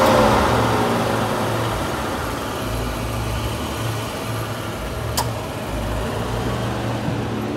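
Nissan NV350 Caravan engine idling with the A/C compressor and condenser fan running, a steady mechanical drone with a low pulsing hum. In the first second a whine glides down in pitch, and one sharp click comes about five seconds in.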